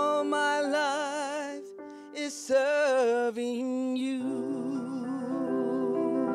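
A woman singing a slow hymn with wide vibrato, accompanying herself on a grand piano. About four seconds in the voice drops back under held piano chords.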